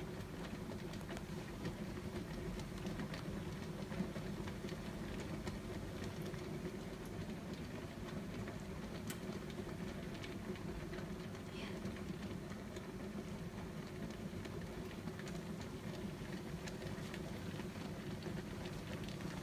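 A large pot of water heating on the stove, giving a steady low rumble with a faint hiss and a few light ticks.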